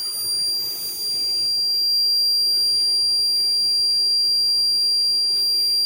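Notifier NFS-320 fire alarm control panel's piezo sounder giving one steady, unbroken high-pitched tone as the panel powers up and runs its startup checks.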